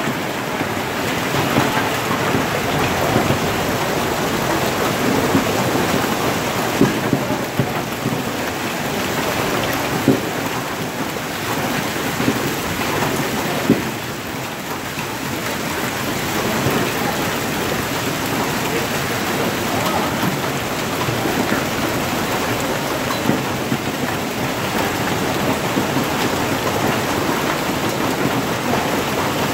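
Hail and heavy rain pelting down on parked cars and pavement: a dense, steady clatter of small impacts, with a few louder sharp hits now and then.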